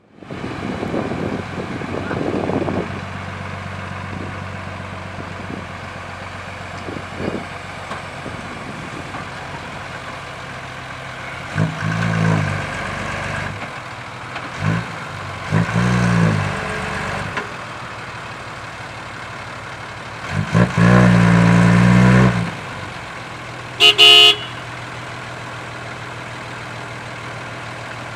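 Isuzu dump truck's diesel engine running under load and revving up hard several times, its rear wheels dug into soft dirt as it tries to drive out. A short horn toot sounds late on.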